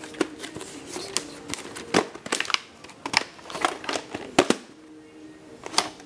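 Irregular clicks and knocks of plastic tape and disc cases being handled, over a faint steady low tone.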